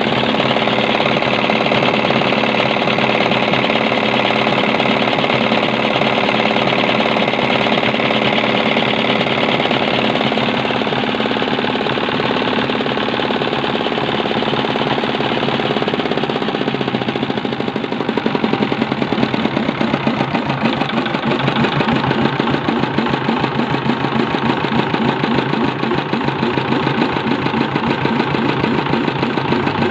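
Single-cylinder Dompeng-type diesel engine running steadily. About seventeen seconds in, its speed drops and the separate firing beats can be heard as it settles to a slower idle.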